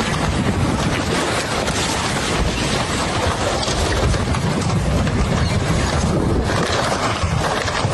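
Floodwater rushing: a loud, steady noise with a low rumble underneath.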